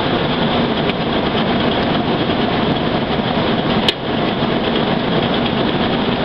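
Ford Ranger's 3.0-litre V6 idling steadily with the hood up. The seller thinks it sounds like it might need a little tightening up.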